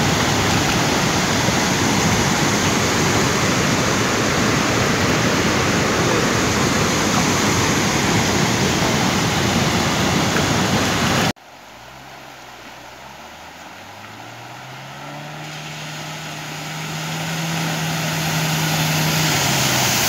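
Rushing roar of a waterfall in full flood, which cuts off abruptly about eleven seconds in. A small Ford car's engine follows: its note climbs, holds steady, and then falls near the end, while the splash of water thrown up by the car grows louder as it drives through water on a dirt road.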